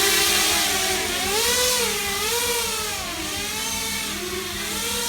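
Electric motors of a remote-controlled Millennium Falcon model in flight, a whir whose pitch keeps rising and falling as the throttle is worked.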